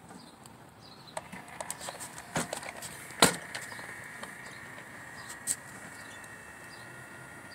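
Handling noise from an interactive plush toy puppy: a run of light clicks and knocks, the loudest a single sharp click about three seconds in, after which a faint steady high hum carries on.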